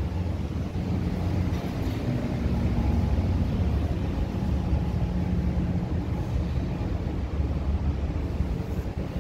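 Steady low rumble and hum of an underground metro station, with no distinct events standing out.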